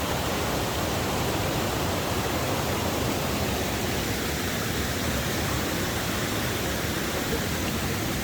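Water rushing steadily over a waterfall: an even, unbroken hiss of falling water.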